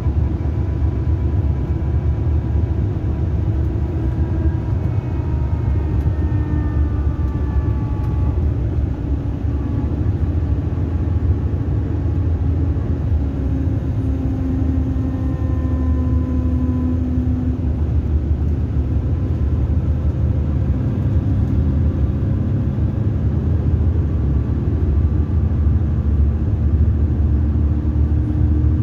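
Cabin noise inside a Mercedes-Benz 2442 coach under way: a steady low drone of engine and road noise, with faint whines that glide up and down in pitch as the drivetrain speeds and slows.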